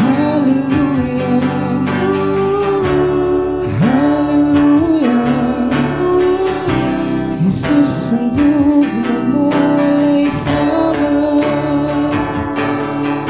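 Bisaya worship song: a voice sings a gliding melody over guitar-led backing music with a steady beat.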